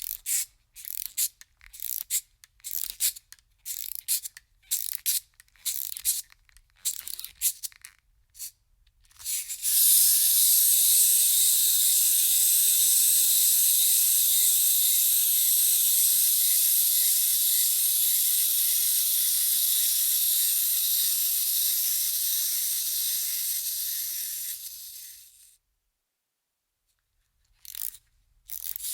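Clockwork wind-up toy being wound, its key ratcheting in quick bursts of clicks for about nine seconds, then the spring-driven mechanism whirring steadily for about fifteen seconds before it trails off and stops as the spring runs down. The ratcheting clicks of winding start again near the end.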